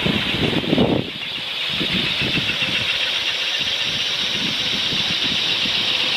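Steady rushing hiss of water and wind around a catamaran under way at sea; the low rumble drops away about a second in.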